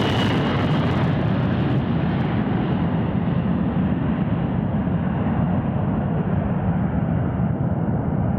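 Boeing 720 jetliner climbing away after takeoff with its jet engines at full power: a loud, continuous jet roar. Its high whine and hiss fade within the first couple of seconds as the aircraft recedes, leaving a steady deep rumble.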